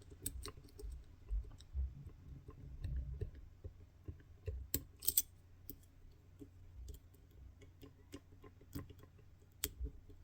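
Lock pick and tension tools clicking and scraping in an Assa 600 pin-tumbler cylinder as the last gin pins are worked. Scattered sharp clicks come at irregular spacing, with a denser run about halfway through, over low handling rumble.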